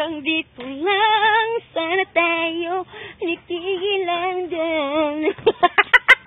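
A woman singing alone, holding long notes with a heavy, wobbling vibrato. About five seconds in she breaks into laughter.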